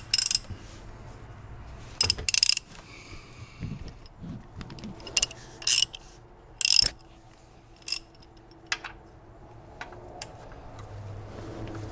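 A socket wrench clicking and clanking on the oil pan drain plug as it is fitted and worked loose: a dozen or so sharp metallic clicks at irregular intervals, some in quick pairs.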